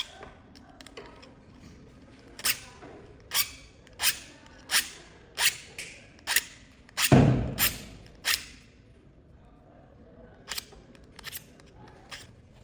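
A pair of scissors snipping shut over and over, about nine crisp cuts at a steady pace of roughly one every 0.7 s, with a dull thud among them about seven seconds in. A few fainter snips follow near the end.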